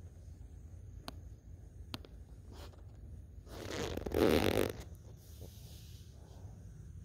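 A brief rustling scuffle lasting about a second, a little past halfway, over a faint low hum, with a few faint clicks earlier on.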